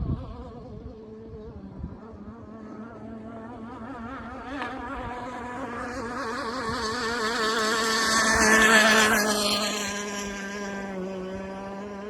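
Zippkits SLR Missile Thunderboat RC hydroplane's two-stroke gas engine buzzing at speed. It grows louder as the boat passes close by about nine seconds in, the pitch dropping as it goes by, then fades as it runs off.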